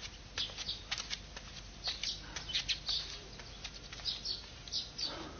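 Small birds chirping in quick, short, high calls, scattered irregularly through the whole stretch.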